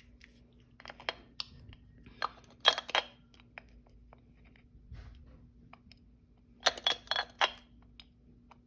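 Espresso machine accessories, such as the metal filter cups, clinking and knocking as they are handled. The clinks come in two bunches a few seconds apart.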